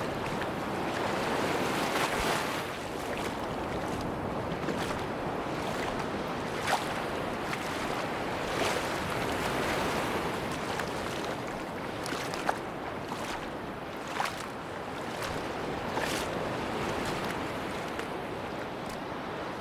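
Sea surf washing on a beach, a steady rushing wash with a few short sharp clicks scattered through it.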